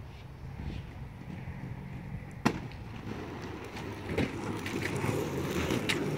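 Inline skates landing with a single sharp smack about two and a half seconds in, after a jump down concrete steps. From about four seconds on, the skate wheels roll over rough asphalt with a running rumble and small clicks.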